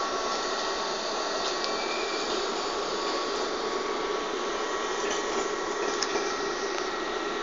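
Belgian MS96 electric multiple-unit train running at a station: a steady rushing noise with a few steady whining tones on top.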